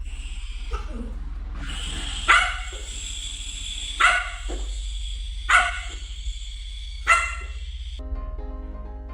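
A dog barking four times, about a second and a half apart, over background music.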